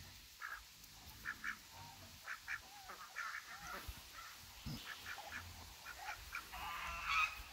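Black domestic ducks giving short, soft quacks every second or so, with a louder run of quacking near the end.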